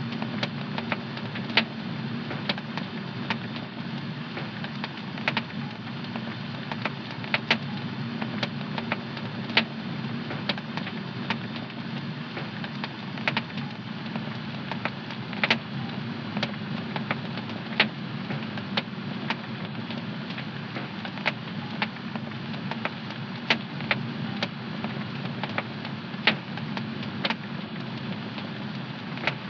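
Wood fire crackling in a home fireplace: irregular sharp pops, about one or two a second, over a steady low rush of the flames.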